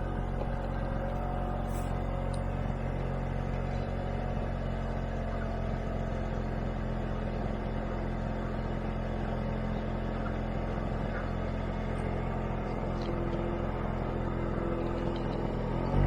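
Scooter engine running at a steady speed, an even low hum that holds without change.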